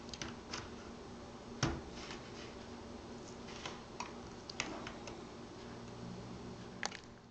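Scattered small clicks and taps of plastic as a PowerBook G4 keyboard is pried loose from the laptop's chassis with fingernails, the sharpest about one and a half seconds in, over a steady low hum.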